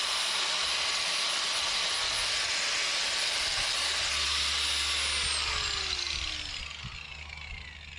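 Angle grinder running at full speed, trimming a rubber wheel-arch flare strip. About five seconds in it is switched off and its whine falls steadily in pitch as the disc spins down.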